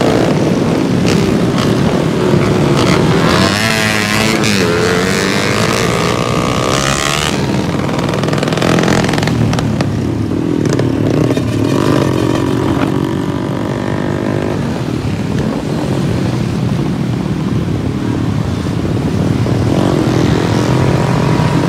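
A pack of small motorcycles and scooters with aftermarket exhausts running together at speed, engines revving up and down. One engine climbs sharply in pitch about four seconds in.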